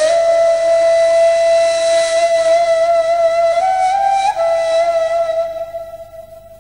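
Turkish ney, an end-blown cane flute, holding one long breathy note. The pitch steps up briefly around four seconds in, then the note fades away near the end.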